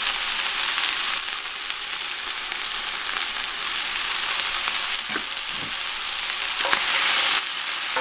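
Chicken thighs with chopped garlic and ginger sizzling steadily in hot oil in a cast-iron pan. A few short scrapes and clicks of a spatula against the pan come in the second half, where the sizzle briefly gets louder.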